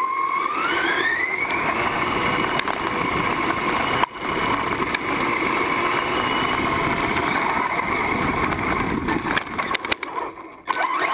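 Radio-controlled truggy's motor running hard as it drives, its whine rising in pitch over the first second and a half and then holding steady over tyre and drivetrain noise. The sound cuts out abruptly about four seconds in and again for about a second near the end.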